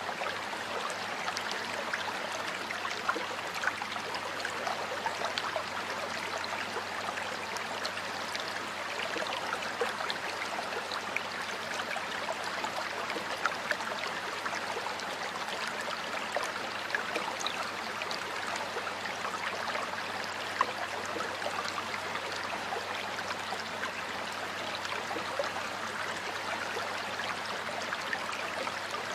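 Flowing stream water running over rocks, a steady rushing with many small splashes and gurgles.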